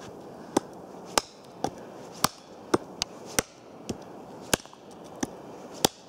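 Small hatchet chopping through a birch branch: about eleven sharp chops, roughly two a second and unevenly spaced.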